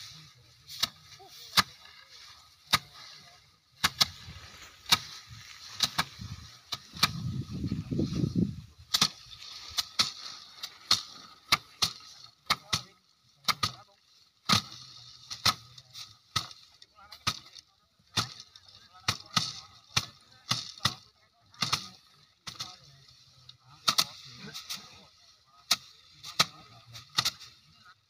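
Bundles of rice stalks struck by hand against a wooden threshing frame to knock the grain off: repeated sharp thwacks from several workers, irregular, one to two a second.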